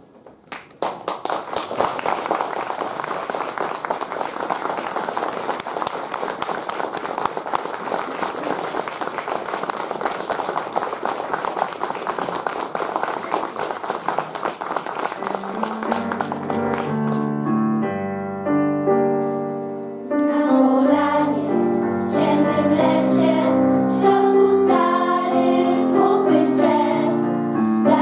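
Audience applauding for about sixteen seconds, then piano music starts and carries on.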